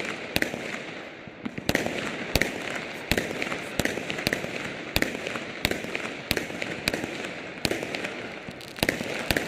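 Aerial fireworks display going off in a steady run: a sharp bang about every two-thirds of a second over continuous crackling.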